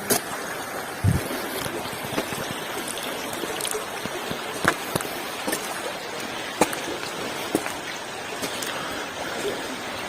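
Steady rushing of flowing water, with scattered sharp clicks and a low thump about a second in.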